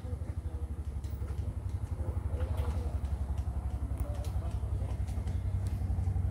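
Low, pulsing engine rumble that grows gradually louder.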